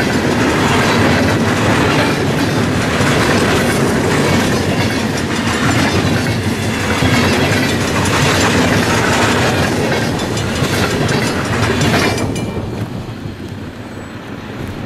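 Freight cars of a CN freight train rolling past, their wheels clattering over the rail joints; about twelve seconds in the clatter drops away sharply.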